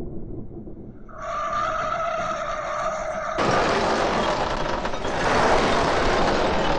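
Slot car running on the track, heard from a camera riding on it: a steady high motor whine at a few fixed pitches, then from about three seconds in a loud, even rushing noise.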